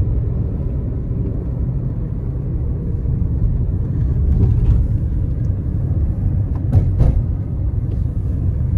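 Road noise inside a moving car: a steady low rumble of engine and tyres at road speed, with brief louder swells about four and a half and seven seconds in.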